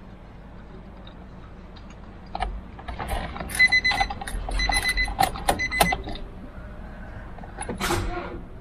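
Ignition of a Nissan Almera with a dead battery being tried: about two and a half seconds in, a run of rapid clicking begins, mixed with a warning beep that sounds in short broken bursts. It stops after a few seconds, and one more cluster of clicks comes near the end. The car will not start because the battery has given out.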